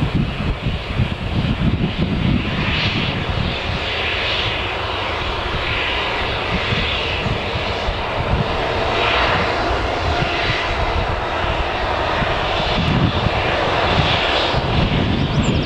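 Embraer E190 airliner's twin General Electric CF34-10E turbofans running at low thrust while the jet taxis past, a steady jet-engine noise with a rumbling low end.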